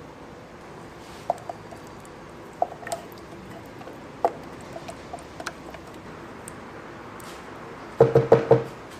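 A silicone spatula knocking against a plastic tub and a steel pan while sauce is scraped out and spread: scattered light knocks, then four quick, louder ringing knocks near the end, over a steady hiss.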